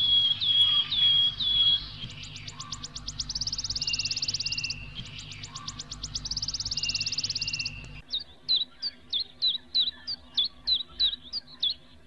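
Birds calling: a falling whistle repeated about twice a second, then two rounds of rapid trills and buzzy notes. About 8 s in the sound cuts abruptly to a run of short, falling chirps, about three a second.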